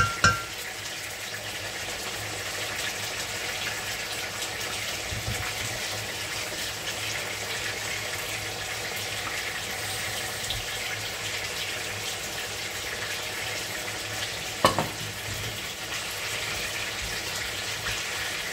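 Fish and okra stew cooking in a pot with a steady sizzle. A wooden spoon knocks twice against the pot right at the start, and there is a single sharp knock about fifteen seconds in.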